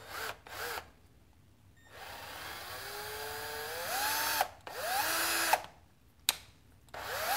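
Cordless drill boring out a stripped screw hole in a plastic RC car part to take a steel thread insert. It runs in several separate bursts, its motor whine rising in pitch each time it speeds up, with a sharp click between runs.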